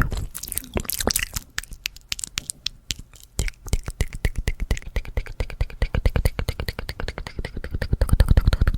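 Fast ASMR mouth sounds made close to the microphone: wet tongue and lip clicks and pops, scattered at first, then a rapid run of many clicks a second from about three and a half seconds in.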